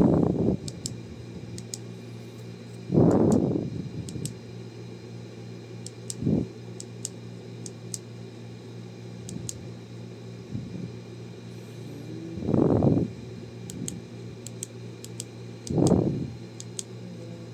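Faint, light clicks from the plastic shell of a Honda Civic key fob being handled and pried apart to reach its coin-cell battery. Under them runs a steady low hum, and every few seconds comes a short, loud rush of noise.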